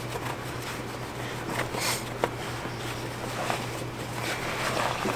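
Soft rubbing and wiping of a hand-held applicator pad working polish over a polished aluminum truck wheel, with one light click a little over two seconds in, over a steady low hum.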